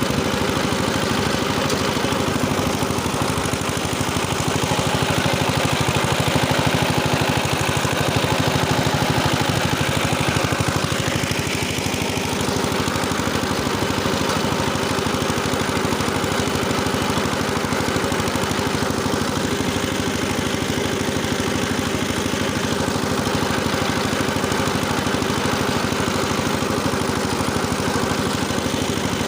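Engine running steadily under load while driving a rotary tiller through the soil.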